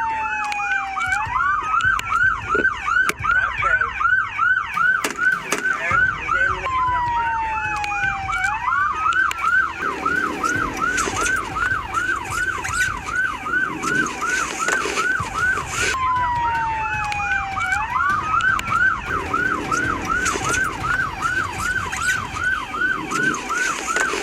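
Police car siren cycling: a long falling tone about every nine seconds, each followed by a fast yelp that rises and falls about three to four times a second.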